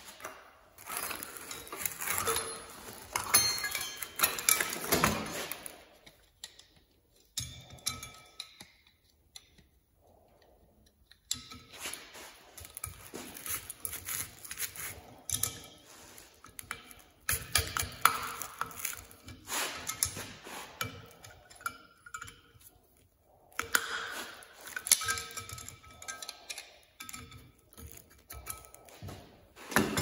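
Hand tools and copper plugs clinking and scraping against the steel D1-6 camlock spindle nose of a lathe as the plugs are worked out of the welded camlock holes with pliers, with short metallic rings. It comes in several bursts with quiet pauses between them.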